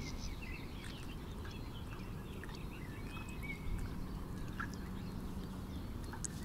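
Small birds chirping and calling, with many short notes scattered throughout, over a low steady rumble.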